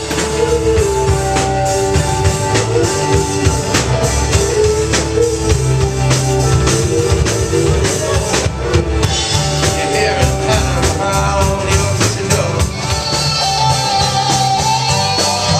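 A band playing a song, with a drum kit keeping a steady beat, guitar and bass, and a voice singing the melody.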